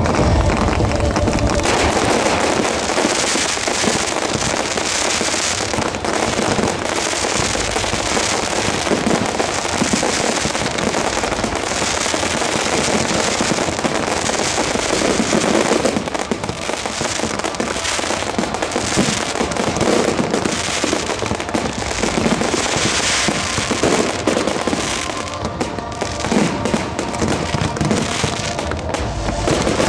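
Fireworks display: a dense, continuous barrage of aerial shells bursting and crackling, many going off at once, easing briefly about halfway through.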